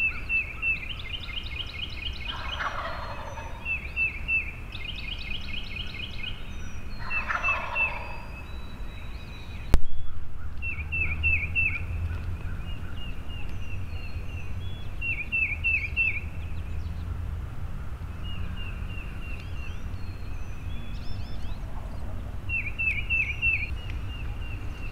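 Wild turkey gobbling twice, then a single loud shotgun shot about ten seconds in, the shot that takes the gobbler. A songbird keeps repeating short runs of chirps throughout.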